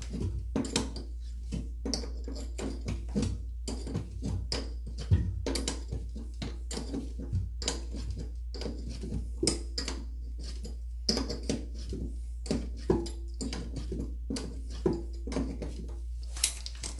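Irregular metallic clicks and knocks from a wrench working the nut of a toilet's water supply line at its shut-off valve, over a steady low hum.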